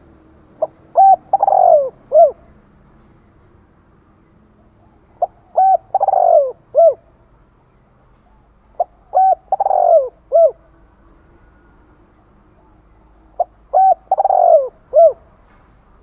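Spotted dove cooing its calling song: four phrases about four seconds apart. Each has a short lead note, a pair of coos, a longer coo that falls in pitch, and a final short coo.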